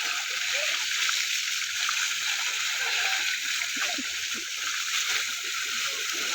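Running water, rushing steadily with splashing.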